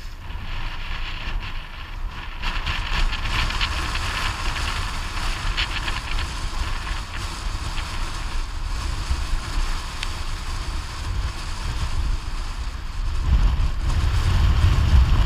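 Boat under way, its motor a steady low drone, with wind buffeting the microphone in a rushing hiss. The low rumble swells near the end.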